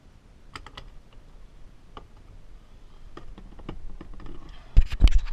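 Scattered light clicks and taps of a socket ratchet being worked on the steering-wheel nut, then a quick run of loud, sharp metal knocks near the end.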